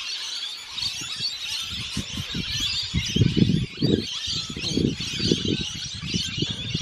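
A dense chorus of many birds, mostly parrots, chirping and chattering without a break. Irregular low thuds and rustles come and go, loudest about halfway through.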